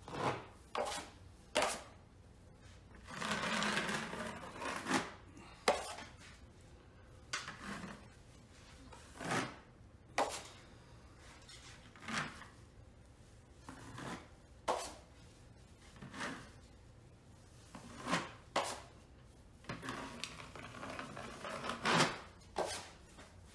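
Drywall taping knife spreading all-purpose joint compound across a ceiling in skim-coat strokes, with the knife scraping against the mud pan: a string of short scrapes at irregular intervals, and one longer scrape about three to five seconds in.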